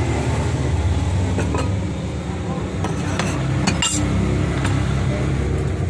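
A plastic ladle scooping cooked porridge out of a metal pot, with scrapes and a few sharp clinks against the pot and bowls, over a steady low background rumble.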